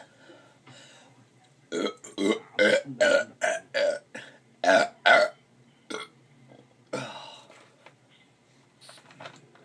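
A quick string of short, loud burps, about eight in three and a half seconds, then two more, the last one longer. They are brought up after gulping soda from a 2-liter bottle.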